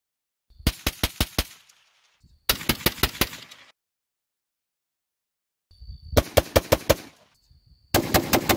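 Rapid strings of rifle shots, each a quick run of about six. The first two strings come from an 8.5-inch 300 Blackout fitted with a Griffin Armament Recce 7 suppressor and are the quieter ones. After a pause of about two seconds come two louder strings from an unsuppressed 11.5-inch 5.56 rifle.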